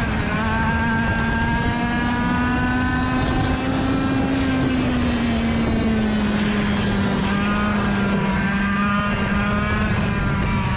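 Rotax DSB two-stroke kart engine running at high revs on track, its pitch climbing a little, dropping back about halfway through and then holding steady.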